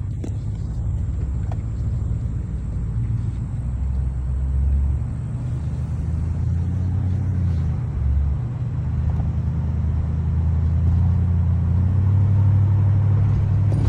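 2010 Toyota Tundra pickup in motion, with a continuous low noise from the passenger side of the kind the truck makes when turning right; it grows a little louder toward the end.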